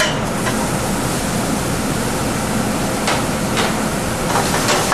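Shredded spaghetti squash sizzling in hot oil in a sauté pan. The steady sizzle starts suddenly as the squash goes in, with a few faint clicks in the second half.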